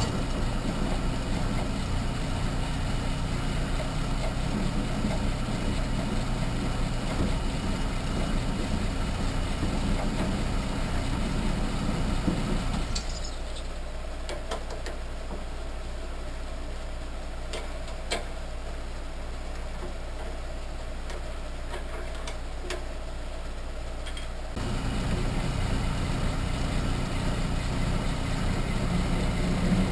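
Harbor Freight 7x10 mini lathe running steadily while drilling a hole with a Q-size drill. The machine hum drops away about 13 seconds in, leaving a low drone and a few light clicks, and the full hum returns near 25 seconds.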